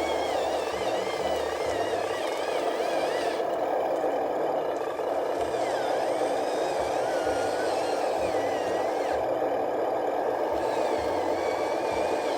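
Remote-control truck's small electric motor and gearbox running steadily, with a continuous whir.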